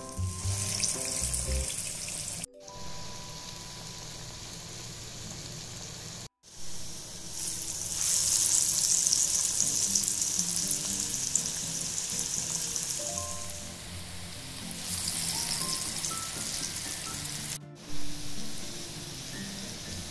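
Falafel balls deep-frying in hot oil, sizzling, loudest through the middle stretch. The sound cuts out briefly three times.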